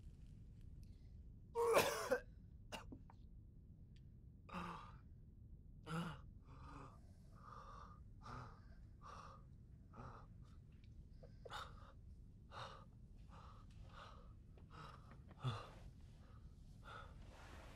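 A man coughing hard about two seconds in, then panting and gasping for breath over and over, about one or two breaths a second, with another sharp gasp near the end. He is catching his breath after being choked with a cord.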